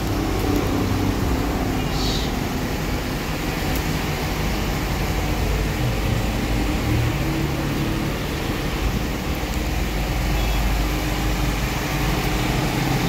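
Steady background noise of road traffic, a continuous low rumble with no single event standing out.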